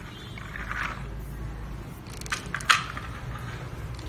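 Light handling noise with a few sharp clicks, the loudest about two and a half seconds in, over a low steady hum.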